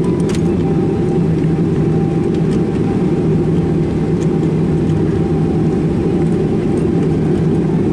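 Steady cabin noise of a Boeing 737-800 taxiing, its CFM56 engines running at low power: a deep rumble with a steady low hum and a faint thin whine above it. A few light clicks come through, one about a third of a second in and others at about 2.5 and 4.3 seconds.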